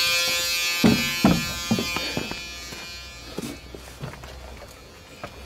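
Footsteps thudding down a school bus's entry steps, four heavy steps in the first couple of seconds and a few lighter ones after, over a steady electric buzz in the cab that fades away as the steps move off.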